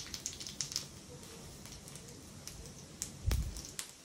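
Cumin seeds crackling and popping in hot oil in a small pan for a tadka, the pops thick at first and thinning out after about a second. A dull low thump about three seconds in.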